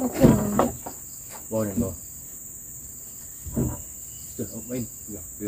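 Steady high-pitched drone of a forest insect chorus, broken by several short bursts of people's voices.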